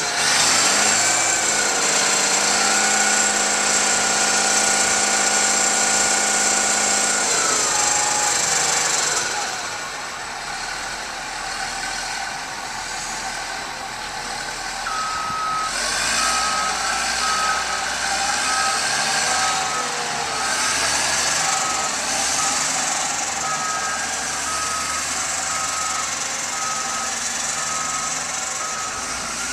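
Caterpillar 12M motor grader's diesel engine running steadily, its pitch shifting and the sound dropping in level about eight seconds in. About halfway through, the machine's backup alarm starts beeping at an even pace as it reverses.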